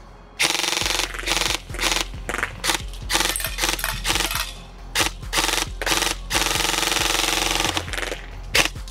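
G&G SSG-1 USR electric airsoft rifle (AEG) firing long strings of rapid automatic shots, a clattering rattle of BBs going out with short pauses between strings, as a 250-round magazine is emptied.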